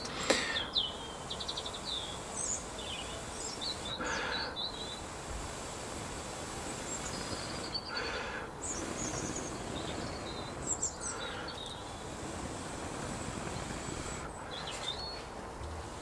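A person blowing into a smouldering cedar-bark tinder nest to coax the ember into flame: four breathy puffs a few seconds apart, the first two the strongest. Small birds chirp throughout over a steady outdoor hiss.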